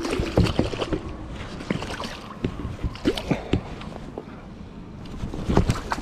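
Irregular knocks, taps and rustles of a hooked silver salmon being handled on the line over wet shore rocks, with the rod and gear moving about, over a steady low rumble.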